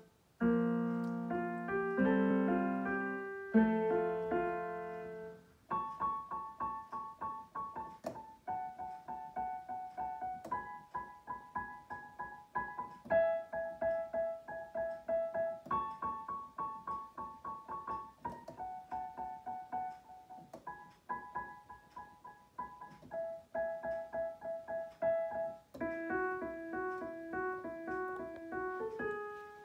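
Roland digital piano played solo: a few seconds of full chords, then a steady, repeating pattern of single notes, with a lower part joining near the end.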